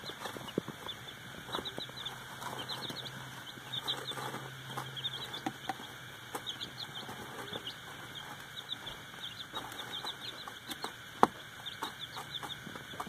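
Young chicks peeping in many short, high, falling chirps, with scattered taps and rustles from them moving about in wood-shaving bedding. A single sharp knock about eleven seconds in.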